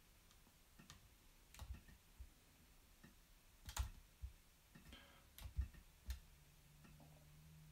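Faint, irregular clicks of a computer mouse and keyboard keys, about ten in all, against near silence, with two louder clicks in the middle; a faint low hum comes in near the end.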